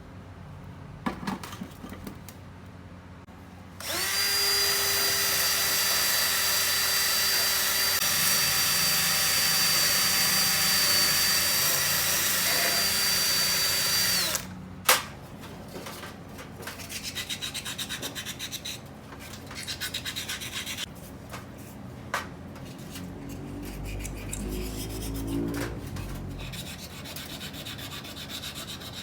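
Handheld electric power tool running at a steady high speed for about ten seconds, with a steady whine that starts and cuts off abruptly. A sharp click follows, then quieter rubbing and scraping as parts are worked by hand.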